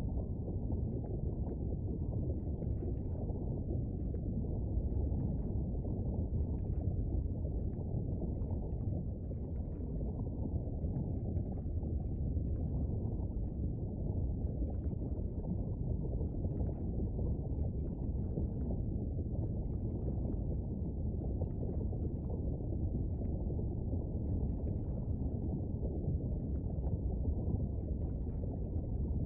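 Volcano and lava sound effect: a steady low rumble with faint crackles scattered through it.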